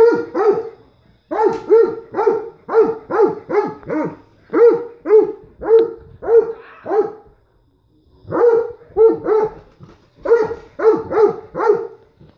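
Dog barking repeatedly at a toy truck, in quick runs of about two barks a second, with a short pause around the middle.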